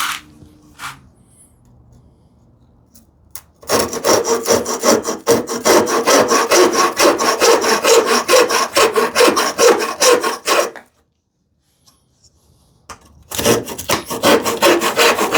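Handsaw cutting through a wooden strip to form a tenon, in rapid back-and-forth strokes: a long run of about seven seconds, a pause of a couple of seconds, then sawing again near the end.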